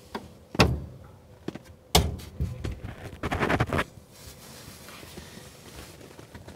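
Handling noises from hands working in the cramped floor area around a light aircraft's brake master cylinder: two sharp knocks, then about two seconds of rustling and clatter as a small part is picked up and fumbled with, settling down after about four seconds.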